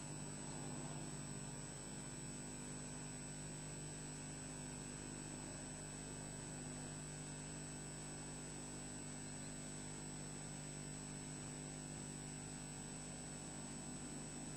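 Steady electrical hum and hiss from a nest camera's audio feed, with a thin high whine, unchanging throughout.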